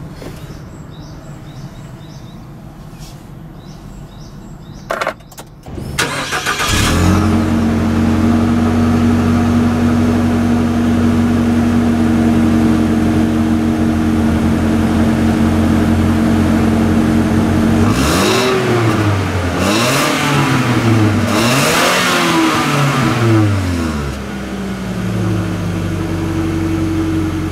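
Nissan NV350 Caravan's QR20DE 2.0-litre inline-four petrol engine, heard at the exhaust tailpipe. After a couple of clicks it starts about six seconds in and idles steadily. About twelve seconds later it is blipped up and down in several quick revs, then settles back to idle.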